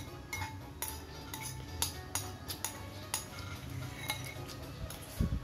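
Metal spoon clinking and scraping against a ceramic rice bowl while scooping food, a string of light, sharp clinks about two a second.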